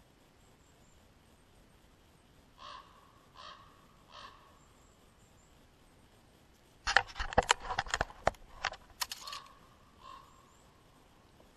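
A crow cawing, three short calls, then a burst of loud sharp clattering knocks lasting a couple of seconds, followed by a few more caws.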